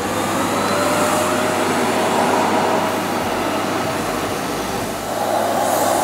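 Vacuum cleaner running with its hose end held up to a wig's hair. The motor is still winding up in the first second, then gives a steady suction noise that grows a little louder near the end.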